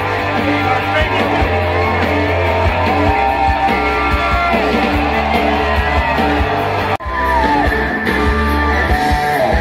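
Live Hindi rock band playing through a concert sound system: electric and acoustic guitars, bass and drums with singing. The sound breaks off for an instant about seven seconds in, where the recording is cut.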